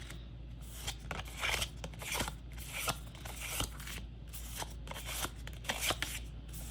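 Tarot cards being flipped through by hand, a quick irregular run of papery snaps and slides as the deck is searched for one card.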